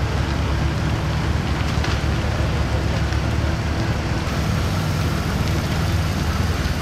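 Heavy-haul Volvo truck's diesel engine running steadily at low speed as it pulls a multi-axle trailer past, a constant low drone with a steady rushing noise over it.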